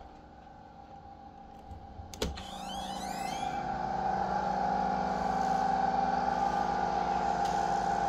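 A machine's steady pitched hum, faint at first, then rising in level after a sharp click about two seconds in and holding steady.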